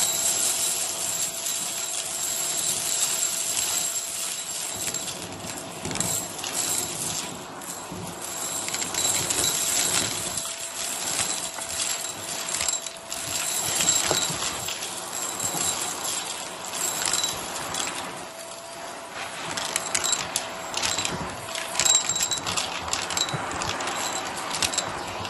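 Hart vacuum running steadily while it sucks up fluff and small hard debris from carpet, with irregular crunching clicks and rattles as beads and crumbs are pulled through the nozzle.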